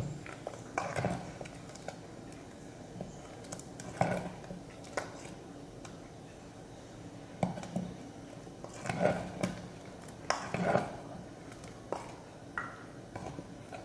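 Spoon stirring a thick curry in a stone pot: a series of short, irregular scrapes and knocks against the pot.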